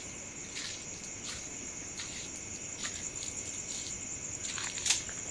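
Steady high-pitched chorus of crickets chirring at night, with a few soft scuffing sounds and a sharper click about five seconds in.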